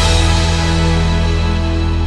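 Music: the drum beat stops and a held chord rings on, slowly fading.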